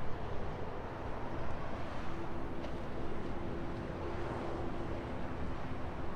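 Steady low outdoor rumble with wind on the microphone. A faint steady hum sits on top and drops a little in pitch about five seconds in.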